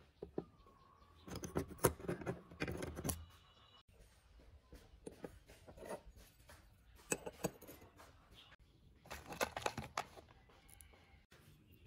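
Small metal planer parts handled on a wooden workbench: several short runs of light clicks and clinks as the cutter drum and blade holders are set down and fitted. Near the end, screws rattle in a plastic tub.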